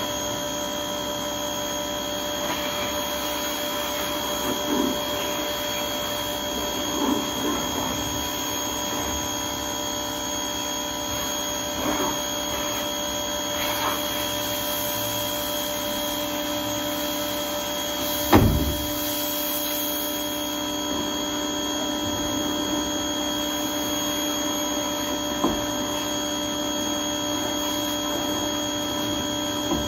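Small red pressure washer running with a steady hum, its spray hitting a plastic trash can now and then. One sharp thump comes about eighteen seconds in.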